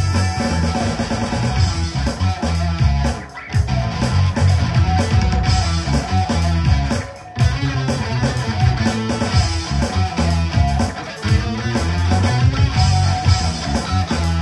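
Live band playing rock music with electric guitar to the fore over bass and drums. The band drops out briefly twice, about three and a half and seven seconds in, then comes back in.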